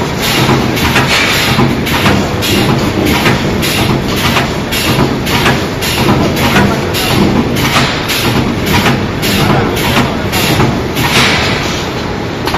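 Automatic gantry wire-mesh spot welding machine working through a panel: its pneumatic welding head strikes in a quick, even rhythm of about two or three welds a second over a steady low hum.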